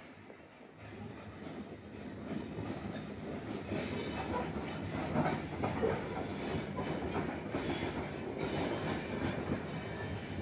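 Iron ore train's wagons rolling slowly along the rails, wheels squealing and clanking, heard from on board a wagon. The rumble swells about a second in and is loudest from about four seconds on.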